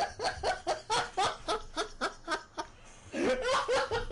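A person laughing in a long run of rhythmic ha-ha bursts, about four a second, louder and more drawn out around three seconds in.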